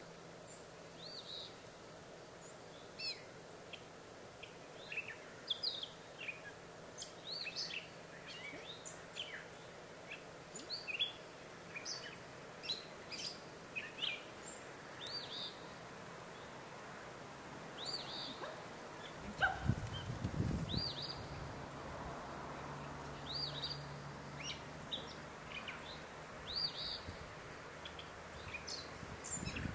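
Wild birds chirping and singing, many short high calls one after another. About two-thirds of the way in, a brief low rumble, followed by a faint low hum.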